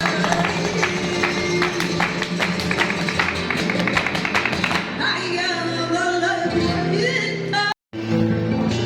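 Flamenco music: sharp, rapid rhythmic strikes with guitar for the first five seconds or so, then a voice singing a wavering, ornamented line. The sound drops out briefly near the end.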